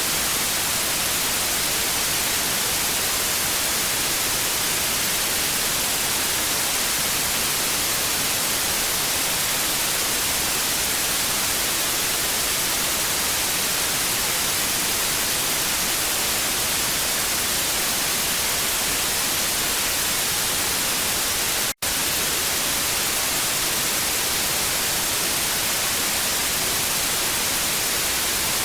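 TV static: a steady, even hiss, heaviest in the treble, with one split-second dropout about three-quarters of the way through.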